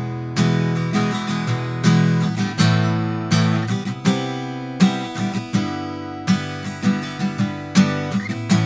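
Acoustic guitar strummed in a steady rhythm, a strum about every half second with the chords ringing between strokes, picked up close by a Neumann U87 Ai condenser microphone.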